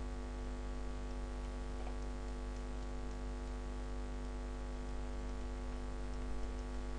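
Steady electrical mains hum and buzz in the recording chain, an unchanging low drone with many overtones. A few faint clicks sound over it.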